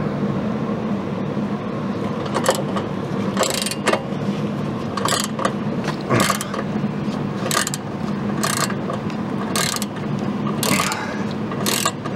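A hand ratchet wrench clicking in short bursts about once a second as it turns the forcing screw of a gear puller, pressing the upper control arm's joint out of the knuckle.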